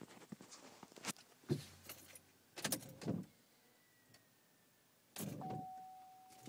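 Keys jangling and the ignition switch clicking and knocking as the key is worked in a 2011 GMC Acadia that has a starting problem. About five seconds in, a steady electronic chime tone comes on and holds.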